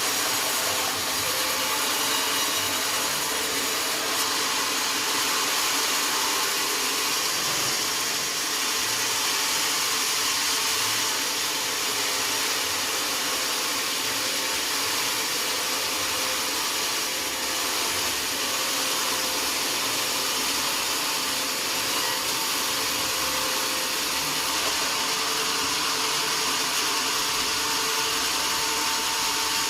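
Sawmill saw cutting through oak, a steady, even, mostly high-pitched noise that keeps up without a break.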